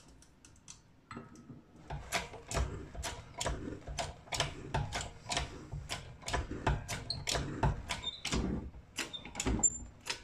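Hydraulic bench press being pumped down, forcing a keyway broach through the bore of a steel gear: a run of sharp clicks and knocks, two or three a second, starting about two seconds in.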